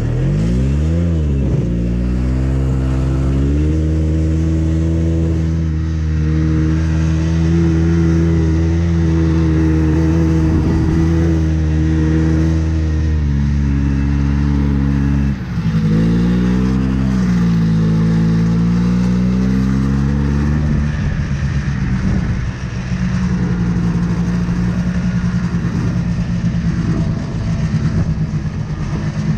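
Yamaha Bravo BR250 snowmobile's single-cylinder two-stroke engine under way, revving up and down with the throttle. It sweeps up and back about a second in, holds a steady higher note, dips sharply about halfway and climbs again, then settles to a steadier lower note for the last third.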